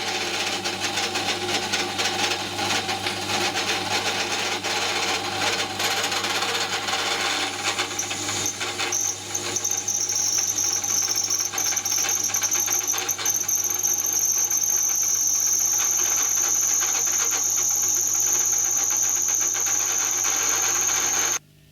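Drill running and cutting into metal, with crackling chip noise. About a third of the way in, a steady high-pitched squeal from the cutter joins in. The machine stops abruptly near the end.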